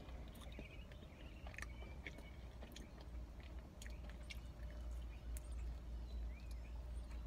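Close-up chewing of a mouthful of pepperoni pizza: soft wet mouth clicks scattered through, over a steady low hum. Faint bird chirps sound in the background.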